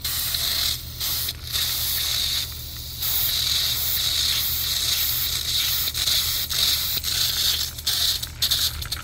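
Air hissing out through the pressure-relief button on top of a whole-house water filter housing, bleeding trapped air as the newly installed well system fills and pressurizes. It is interrupted by a few brief breaks and comes in short spurts near the end.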